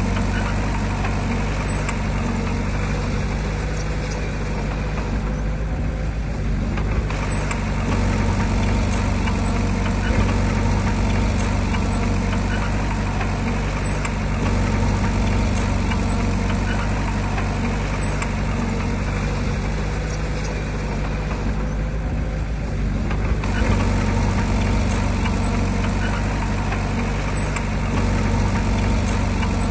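Heavy diesel engine of earthmoving machinery running steadily at a constant speed, its higher sound easing off briefly twice, about six and twenty-two seconds in.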